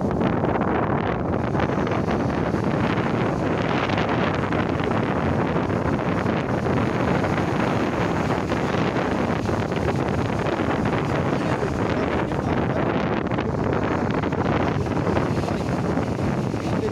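Sea surf breaking and washing up the sand, heard under steady wind noise on the microphone.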